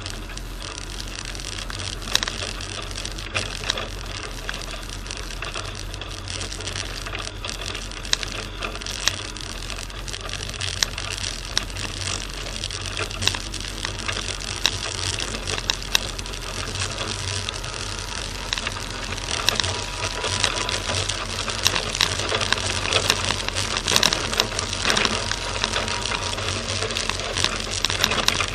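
Fiat Panda 4x4 driving on a snowy dirt track, heard from a roof-mounted camera: a steady low engine hum and driving noise with frequent sharp clicks and rattles, which grow busier and louder in the last third.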